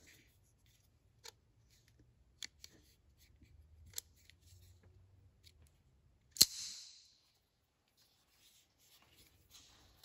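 Faint clicks of the Buck 838 Deploy automatic knife's safety and button being handled, then, past the middle, one loud sharp snap as the spring-fired blade flies open and locks.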